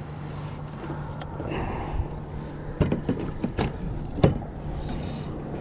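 A few sharp knocks and clicks of rod and tackle being handled as a small crappie is lifted from the water and swung into a fishing kayak, over a steady low hum. The loudest knock comes about four seconds in.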